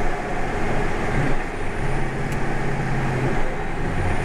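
John Deere 9570 tractor running steadily under load while pulling a ripper, heard from inside the cab. A low hum comes in about two seconds in and drops away again shortly after.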